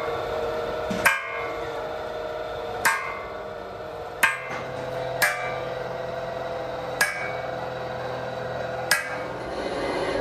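Hammer striking metal six times at uneven intervals, each blow ringing briefly, over a steady machine hum.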